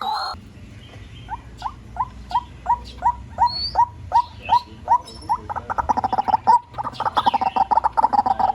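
White-breasted waterhen calling, a decoy recording: a run of short, evenly spaced notes, about three a second, that quicken into a fast, dense chatter a little past halfway.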